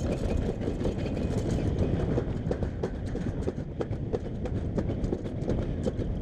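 Toboggan sled running down a steel summer-toboggan trough: a steady rumble with many irregular rattles and clicks as it rolls along the track.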